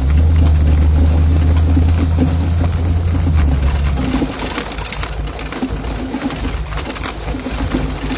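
Vehicle engine working hard while driving through tall weeds: a loud, steady low hum for about four seconds that then eases off, with weed stalks scratching and ticking against the vehicle throughout.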